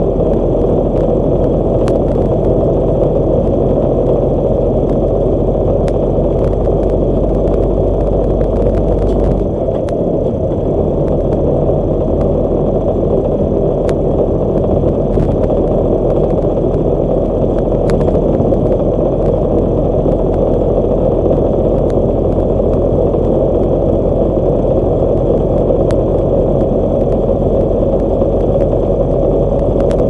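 Steady in-cab engine and tyre noise of a truck driving along a concrete highway, with scattered light clicks and rattles; the low drone dips briefly about a third of the way through.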